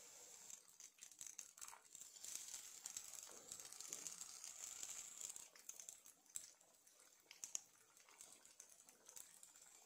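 Faint sizzling and crackling of hot oil around samosas deep-frying in a pan. The fizz is strongest in the first half, then thins to a light sizzle with a few sharp pops.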